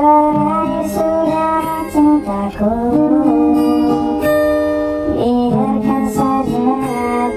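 Pop ballad music with guitar, a melody of held notes that slide between pitches over the accompaniment.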